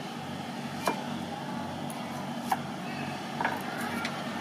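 A few sharp knocks of a cleaver striking a round wooden chopping board as a shallot is sliced, the two loudest about a second and a half apart. A steady low mechanical hum runs underneath.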